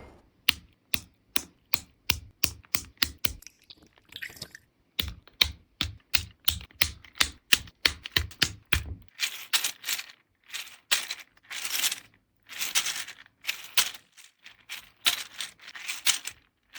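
Hard plastic parts of a 3D-printed fidget toy being worked by hand: sharp separate clicks, about two or three a second, for the first nine seconds or so, then longer rattling, scraping runs of plastic on plastic, each under a second, with short gaps between.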